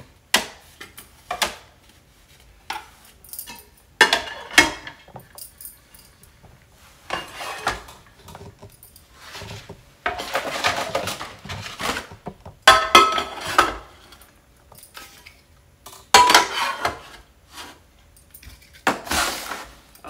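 Caraway ceramic-coated pots and pans being stacked and set into their rack: irregular clanks and clatters of cookware knocking together, several with a brief metallic ring.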